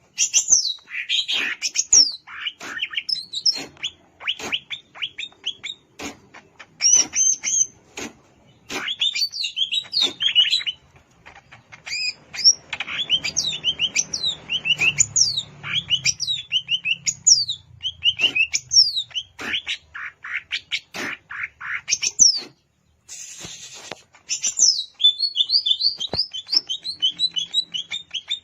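Green leafbird (cucak ijo) singing a fast, varied song of sharp falling whistles and chips, delivered in bursts broken by short pauses.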